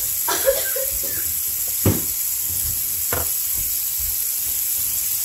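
Two dull knocks, about two and three seconds in, over a steady hiss, with a brief murmur near the start.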